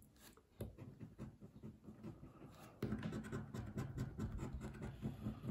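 A coin scratching the scratch-off panel of a paper bingo scratch card, in quick irregular strokes, louder from about three seconds in.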